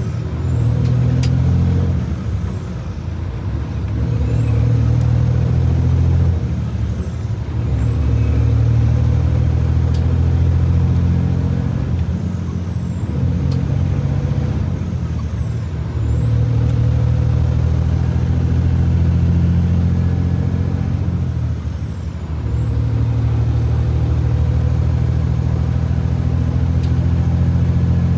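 2006 Freightliner Classic semi truck's diesel engine pulling a trailer loaded with about 32 metric tons of canola, accelerating up through the gears. The engine note builds with each gear, drops away briefly at each of about five upshifts, then builds again. A faint high whine climbs with each pull and falls at each shift.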